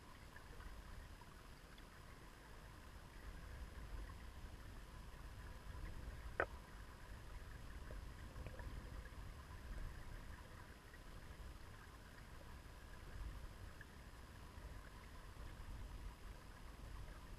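Shallow river current heard underwater over a pebble bed: a faint, steady low rumble with light ticking, and one sharp click about six seconds in.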